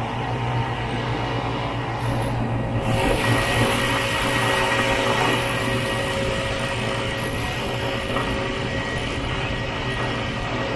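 Vintage snowmobile's engine running steadily while riding, a continuous drone with rushing noise over it that grows brighter about three seconds in.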